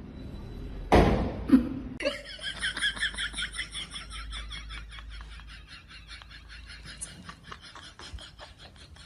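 A thump about a second in, then a person laughing in a long, rhythmic, high-pitched run of pulses that slowly fades.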